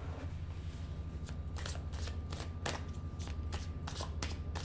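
A tarot deck shuffled by hand, the cards snapping against each other in a quick run of short strokes, about four a second, beginning about a second in.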